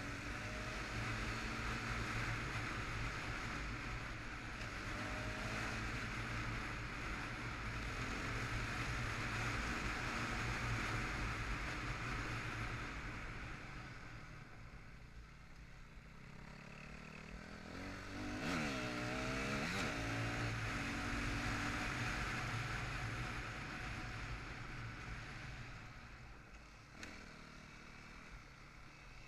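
Yamaha 250 WR-F four-stroke single-cylinder enduro bike running under way, heard from the rider's helmet camera with wind rushing over the microphone. The engine note rises and falls as the rider accelerates and eases off, with the plainest run of revving up through the gears about two-thirds of the way in, and the throttle easing off near the end.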